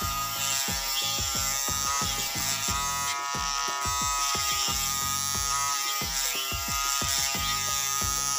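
Small electric motor of a homemade mini lathe running at high speed with a steady whine, spinning a fishing-float blank as it is sanded. Background music with a steady beat plays over it.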